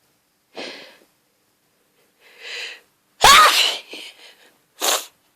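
A woman's hay-fever sneeze, from a grass-pollen allergy. Breathy gasps build up to one loud sneeze with a sliding voiced cry about three seconds in, and a quick sharp breath follows near the end.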